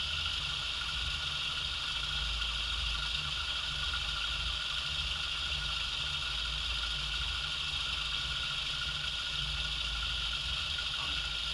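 A restored 1920s IXL lathe running steadily, belt-driven from a small single-phase motor through a countershaft, during a slow first cut in aluminium bar: a low hum under a steady high hiss.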